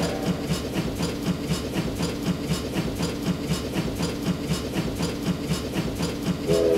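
An even, rhythmic mechanical beat of about three low thumps a second, with hiss over it. A held chord of several steady tones comes in near the end.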